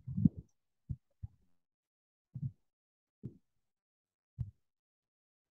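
About six soft, low thuds at irregular intervals, each very brief, with dead silence between them.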